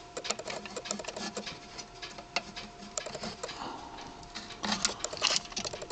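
Pliers clicking and scraping as a small jumper is worked onto circuit-board header pins: irregular light clicks and ticks, with a faint steady tone underneath.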